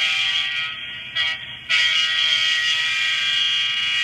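Small speaker of a RadioShack recordable sound module playing back a recorded sound: a loud, steady buzzing tone with many overtones. It drops and goes duller about a second in, then comes back full just under two seconds in.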